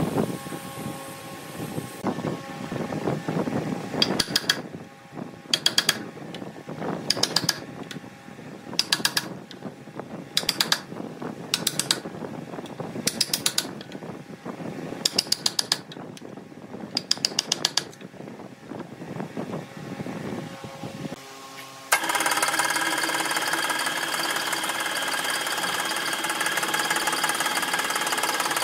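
Hand chisel paring a redwood vase's wavy rim: short bursts of rapid scraping clicks, about one burst a second. About 22 seconds in, this gives way abruptly to a steady electric motor hum with several held tones, from a motor spinning a shaft and disc.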